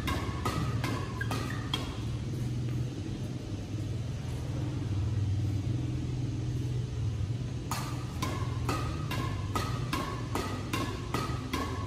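Badminton rackets striking a shuttlecock back and forth in a fast drive and net-kill drill: crisp ringing string hits, two to three a second. The hits stop about two seconds in and resume near eight seconds, over a steady low hum.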